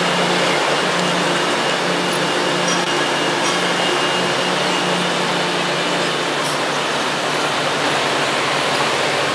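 Steady city traffic and construction-site noise, with a low machine hum that fades out about six seconds in.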